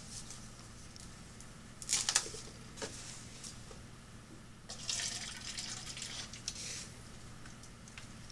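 Water splashing and pouring onto pepper plants during watering, in two spells: a short one about two seconds in and a longer one from about five seconds in. A steady low hum runs underneath.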